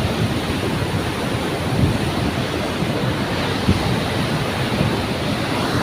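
Steady rushing of falling water, with wind buffeting the microphone in low gusty rumbles.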